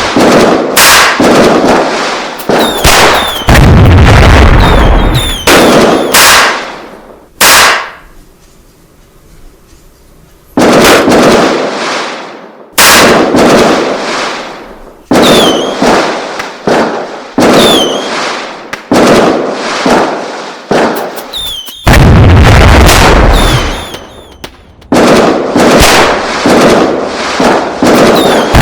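A rapid run of loud sudden bangs, one after another, each dying away in a rumbling tail, with a few brief falling whistles among them; a lull of about three seconds comes in the middle.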